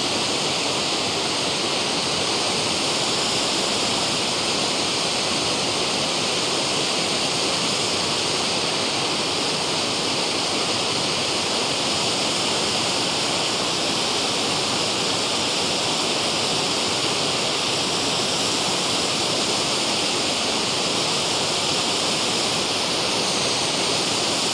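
Waterfall pouring into its plunge pool, a steady, even rush of falling water, its flow swollen by recent rain.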